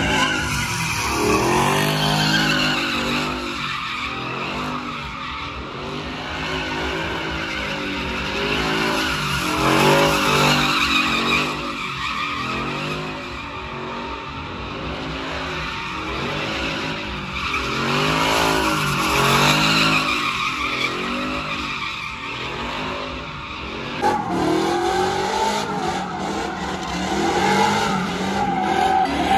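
Pickup trucks spinning donuts on pavement: tyres squealing and skidding steadily while the engine note rises and falls over and over, about once a second. The engine sound changes abruptly a few seconds before the end.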